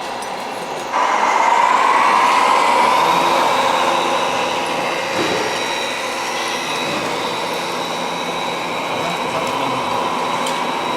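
Electric motor and gearbox whine of a radio-controlled model truck pulling a brake trailer, coming in suddenly about a second in, rising slightly and then holding steady under load.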